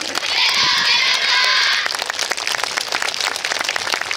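Audience applause with rapid, irregular clapping, and a burst of high-pitched cheering from many voices from about half a second to two seconds in.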